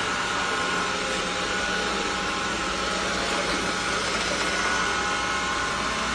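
Roborock E20 robot vacuum running steadily: its suction fan and brushes give an even whir with a faint, constant whine.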